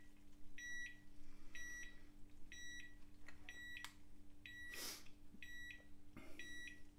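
Digital probe meat thermometer's alarm beeping: short high double beeps, about one pair a second, because the probe reading is above its set target temperature. There is a faint steady hum underneath, and a click and a rustle of handling about four to five seconds in.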